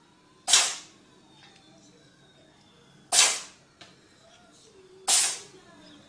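Domestic cat sneezing three times: short, sharp sneezes, the first about half a second in, then two more roughly two and a half and two seconds apart.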